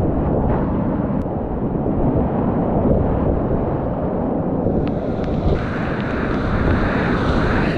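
Whitewater rapids on a steep creek at high water rushing around a kayak, with water buffeting the microphone. About five and a half seconds in the rush turns brighter and hissier.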